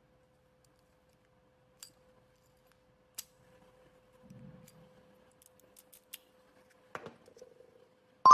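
Small metallic clicks and a knock from a newly cut HYN14 key being worked into a lock and turned, spaced out every second or so, over a faint steady hum. A bright chime starts at the very end.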